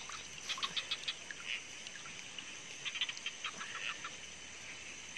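Night insects, crickets among them: a steady high trill with short runs of quick chirps now and then.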